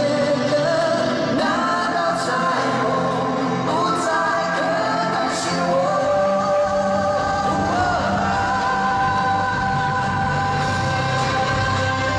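Live pop-rock band playing: male vocals singing long held notes over electric and acoustic guitars, bass and drums.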